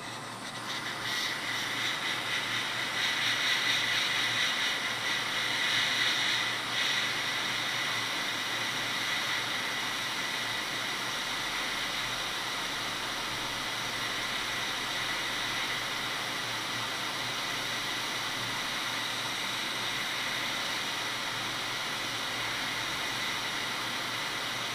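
Hot air rework station blowing a steady hiss of hot air onto a MacBook Pro logic board to desolder a surface-mount chip, with a faint steady whine. It is a little louder for the first several seconds.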